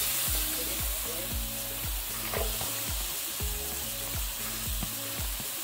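Mushrooms sizzling in hot oil in a frying pan as diced onions are tipped in and stirred with a silicone spatula; a steady frying hiss.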